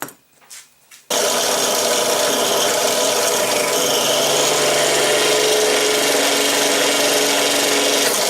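Drill press switched on about a second in, then running steadily while drilling holes in a folding knife's handle to mark the ends of a framelock cut. Before it starts there are a few faint clicks.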